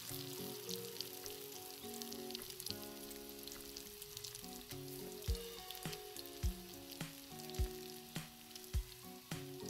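Egg omelette batter sizzling as it fries in plenty of hot oil in a camping pot, with a spatula pushing through it. Background music with held melodic notes plays over it, and from about halfway a low beat thumps roughly once a second.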